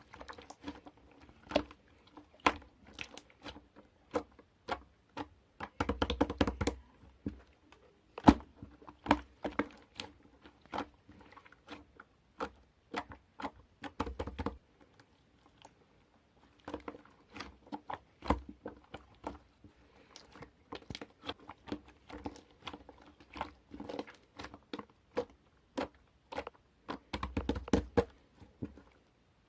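Irregular close-up clicks and taps with some crinkly handling noise, coming in uneven flurries with a short pause about halfway through.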